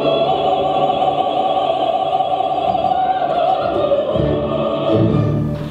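Operatic singing: one long high note held steadily for about five seconds, then breaking off near the end.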